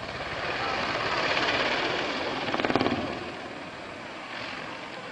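AH-64 Apache attack helicopter flying past, its engines and rotor rushing. The sound swells to its loudest about two and a half seconds in, with a fast, even beat of rotor blade slap, then eases off.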